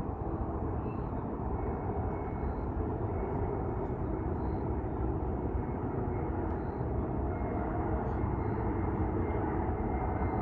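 Jet airliner's engines with a steady rumble that slowly grows louder as the plane approaches, with a faint high whine above it.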